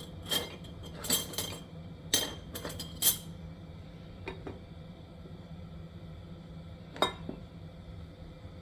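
Cutlery and dishes clinking as they are handled, in a quick run of sharp, ringing clinks over the first three seconds and one more about seven seconds in, over a steady low hum.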